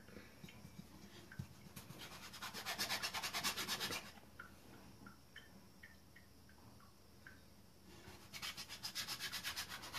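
Metal teapot lid twisted back and forth on rolled pizza dough, its rim rasping against the stone countertop as it cuts out a round. There are two bouts of fast, rhythmic scraping strokes, one about two seconds in and another from about eight seconds in.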